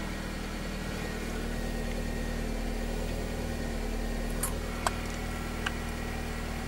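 2010 Honda Civic's four-cylinder engine idling steadily, heard from inside the cabin with the air-conditioning running; a healthy, even idle on fresh oil that the mechanic calls sounding good. A few faint clicks come about four and five seconds in.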